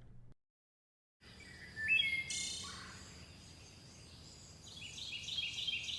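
Birds chirping over a faint steady outdoor background, starting about a second in. A quick run of repeated chirps comes near the end, and then the sound cuts off abruptly.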